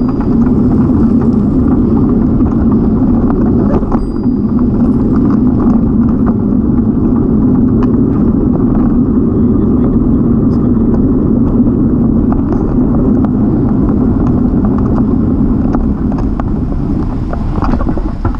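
Wind and road rumble on the microphone of a camera mounted on a moving bicycle: a steady, loud, low noise that eases as the bike slows to a stop near the end.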